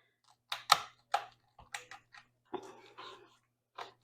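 Kitchen knife cutting raw chicken breasts in half: several sharp knocks of the blade with a softer scraping stretch between them.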